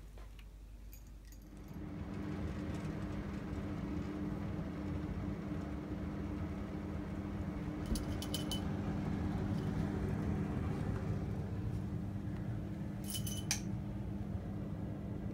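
A steady low hum starts about two seconds in and keeps going, with two brief bursts of light clinking about eight and thirteen seconds in.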